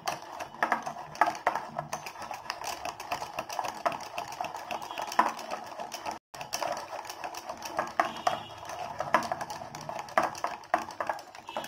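Wire whisk beating a thick gram-flour and egg batter in a glass bowl: fast, irregular clicking and tapping of the wires against the glass with a wet slap of batter, briefly cut off about halfway. The batter is being beaten smooth.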